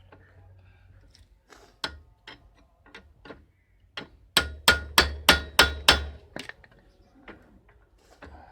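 Hammer striking steel with a ringing clang, knocking a bicycle pedal axle loose from its thread in the crank. A few scattered blows, then a fast run of six loud strikes at about three a second, then a couple of lighter taps.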